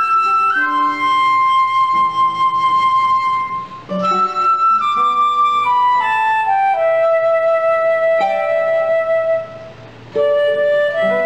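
Flute and classical guitar duet: the flute plays a slow melody of long held notes over plucked guitar notes. The music drops away briefly between phrases, a little under four seconds in and again near ten seconds in.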